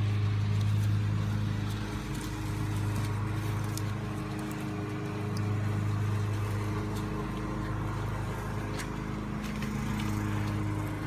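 A steady low machine hum runs throughout, with a few faint clicks and knocks as plastic trim pieces are handled and fitted back into place.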